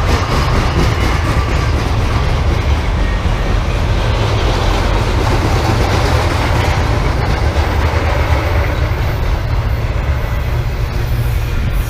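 BNSF intermodal freight train rolling past at track side: a steady, loud rumble of steel wheels on rail with some clatter.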